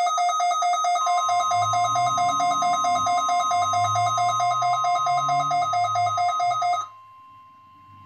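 Midland WR120 weather radio alert alarm going off, a loud, rapidly pulsing two-tone beep set off by the National Weather Service's Required Weekly Test. About a second in, the broadcast's steady warning tone joins it. The radio's beeping cuts off suddenly near the end, and the steady tone carries on.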